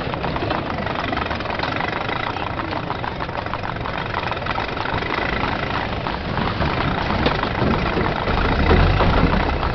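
Early motor car engines running and chugging in steady street traffic, with many small knocks and rattles, part of a recreated street soundscape. A louder low rumble comes in near the end as a car passes close.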